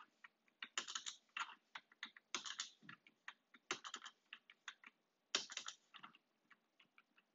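Computer keyboard keystrokes in quick, irregular runs of clicks, the backspace key tapped repeatedly.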